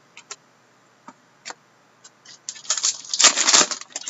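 Trading cards being handled: a few light ticks, then about two and a half seconds in a dense crackly rustle of cards sliding against each other and their packaging, lasting just over a second.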